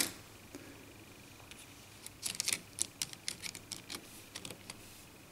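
A quick, irregular run of light clicks and taps, starting about two seconds in: fingers handling and pressing on the plastic housing of a Huawei Y550 smartphone.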